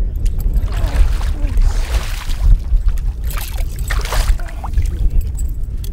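A silver (coho) salmon thrashing in shallow water at the shore as it is landed, with several splashes, over a steady low rumble.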